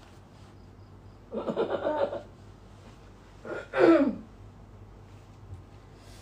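A woman's voice making two brief non-speech vocal sounds: a short pulsing sound about a second and a half in, then a louder sound near the four-second mark that falls in pitch.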